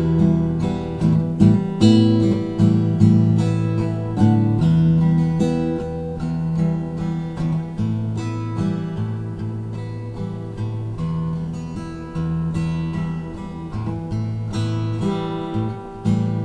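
Acoustic guitar playing an instrumental passage, chords ringing out with no voice.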